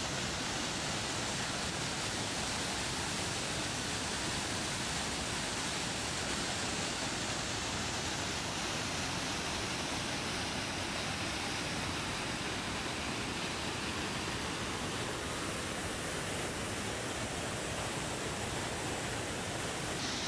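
A waterfall and its rapids pouring over rock ledges: a steady, even rush of water.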